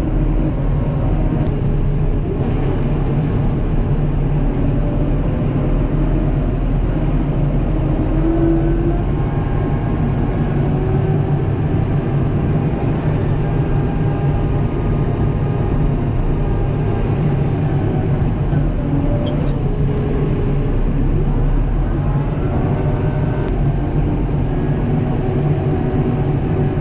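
Kubota M7060 tractor's four-cylinder diesel engine running steadily, with faint higher tones above it that drift in pitch now and then.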